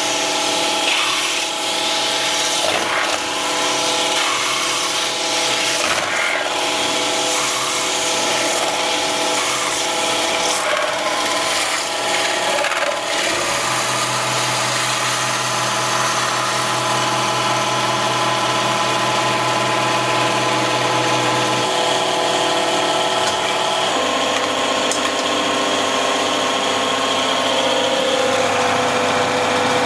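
CNC metal spinning machine running, its roller tool rubbing hard against a spinning sheet-metal cone as it forms it, with a steady rasp and a machine whine. The whine changes pitch about halfway through and again later on.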